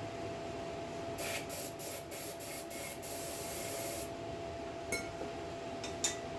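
A run of six or seven short hissing sprays from a pressurised nozzle or can, then a steady spray of about a second, followed by two brief puffs near the end. A steady hum runs underneath.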